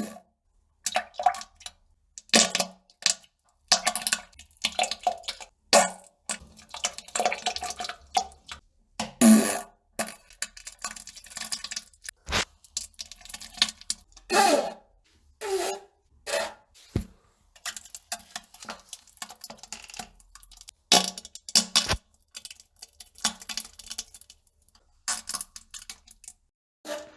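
A person defecating into a toilet: short irregular bursts of farting and splashing into the bowl water, with a few sharp ticks along the way.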